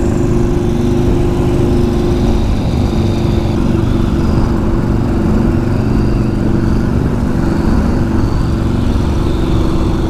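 Yamaha Road Star Warrior 1700 V-twin motorcycle running at a steady cruise, heard from the rider's helmet with wind rushing over the microphone.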